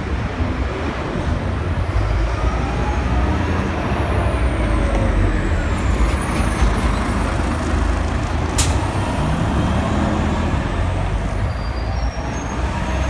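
New Flyer D60HF articulated diesel city bus pulling away and passing close by, its engine running loud and low and rising in pitch as it accelerates through the gears. A short sharp sound cuts in about eight and a half seconds in.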